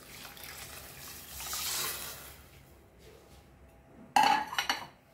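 Stock poured into a stainless-steel pot of fried basmati rice, building over the first two seconds and then tailing off. A brief, louder clatter comes about four seconds in.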